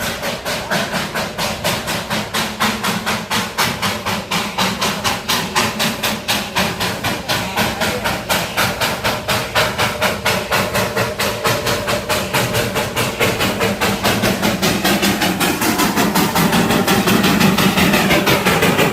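Darjeeling Himalayan Railway toy train running, with an even rhythmic beat about two or three times a second that grows louder over the last few seconds.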